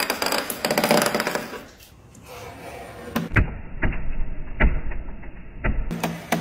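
Handheld razor scraper scraping across a hard countertop and popping dried drips off it: a rapid rattling scrape in the first second and a half, then a string of sharp clicks and knocks as the blade strikes and flicks off the drips.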